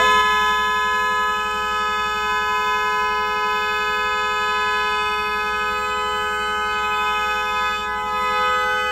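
Car horn held down continuously, a steady two-tone note that cuts in suddenly and holds without a break.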